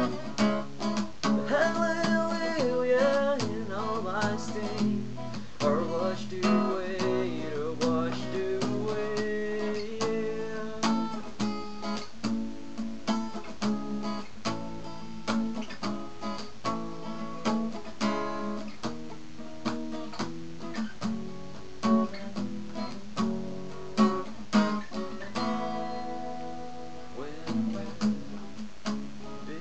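Acoustic guitar strummed steadily, with some single melody notes moving over the chords, over a steady low hum from a webcam microphone.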